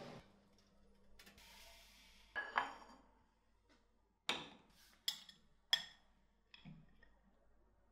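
Tableware clinks: a ceramic soup bowl knocked down onto a ceramic saucer, then three sharp ringing clinks of a metal spoon against the bowl and a lighter knock near the end.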